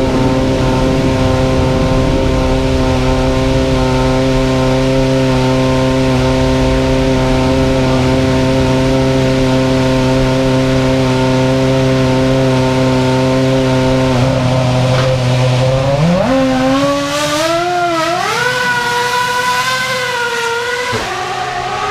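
Ferrari engine idling steadily, then revved up sharply about sixteen seconds in, its pitch held high and wavering for a few seconds before it drops back to idle near the end.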